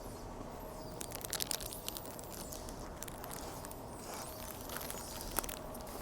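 Plastic trash bag wrapped over a suitcase crinkling and rustling in short, scattered crackles over a steady low background hum.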